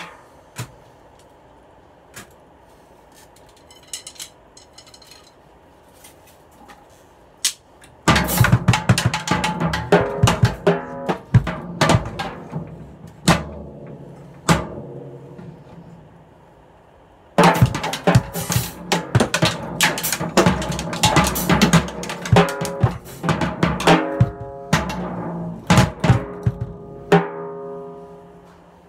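Acoustic drum kit played with sticks. A few light taps come first, then a fast, loud run of snare, bass drum and cymbal hits for about seven seconds. After a short pause a second loud burst lasts about ten seconds and stops, leaving the drums ringing briefly.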